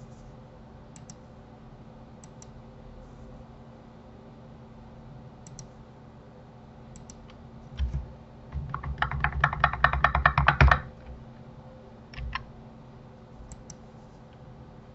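Computer keyboard and mouse: scattered single clicks, and about nine seconds in a quick run of key presses lasting about two seconds. A faint steady hum runs underneath.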